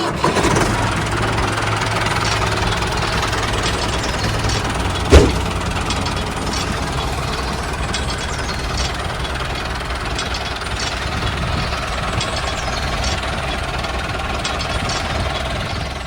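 A small home-built model farm machine running with a steady mechanical clatter and scattered light ticks. A single sharp knock about five seconds in is the loudest sound.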